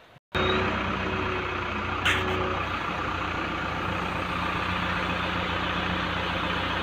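JCB backhoe loader's diesel engine running steadily as the backhoe arm lifts its linkage off the unpinned bucket, with one short metallic clank about two seconds in.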